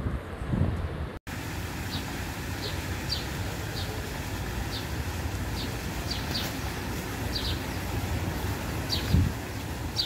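Wind buffeting the microphone. After a sudden cut about a second in, a fountain jet's splashing water and wind give a steady hiss, while a bird chirps short high notes once or twice a second.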